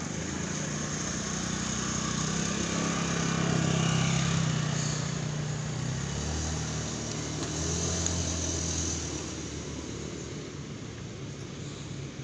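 Motor vehicles passing on a nearby road, their engine noise swelling and fading twice, peaking about four seconds in and again about eight seconds in.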